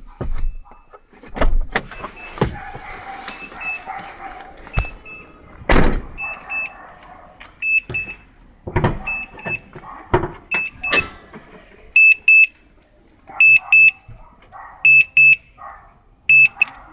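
Suzuki Splash's electronic warning beeper sounding high-pitched double beeps about every second and a half, a strange fault that began after the battery went flat; the beeps grow much louder over the last few seconds. Scattered knocks and clicks come in between.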